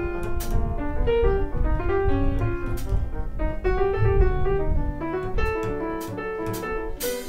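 Live jazz piano trio: an acoustic grand piano plays chords and running lines over an upright double bass. A few light cymbal strikes sound along the way, and a cymbal crash comes near the end.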